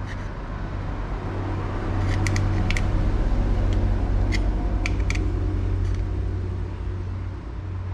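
Tucking fork clicking against aluminium angle, a scattered handful of small sharp metallic clicks as creases are squeezed into the flange one after another to curve the strip. Under it runs a steady low rumble.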